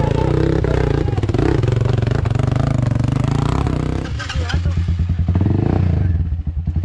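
Dirt bike engine revving hard and unevenly as the bike is ridden and pushed up loose rocks. About four seconds in, the sound changes to a dirt bike engine running at low revs with an even pulsing beat.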